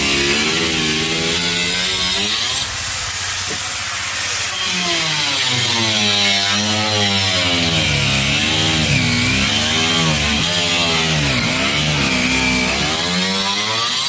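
A woodworking power tool's motor running continuously, its pitch sweeping up and down, with a high whine that rises and falls.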